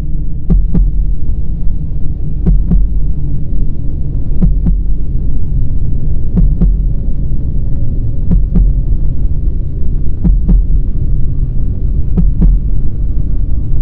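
Slow heartbeat sound effect, a double thump about every two seconds, over a loud low drone.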